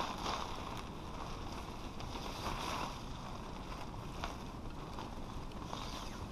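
Tarp rustling and swishing as it is pulled and draped over a branch, a few soft swishes and a small click, over a steady low rumble of wind on the microphone.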